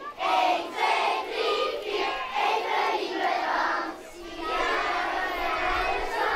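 A large group of schoolchildren singing a rehearsed Dutch thank-you song together, with a short break about four seconds in before the voices carry on.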